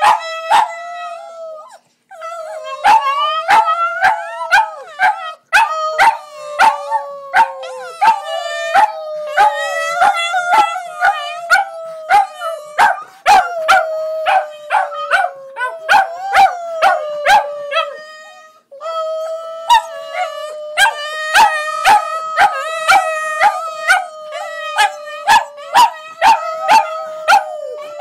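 Border Terriers howling in long, drawn-out notes, with frequent short barks cutting in. The howling breaks off briefly a few times and starts again.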